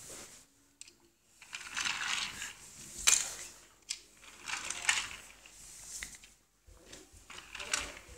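Red plastic toy car rolling over a hard floor in short bursts, its wheels and body rattling, with one sharp click about three seconds in.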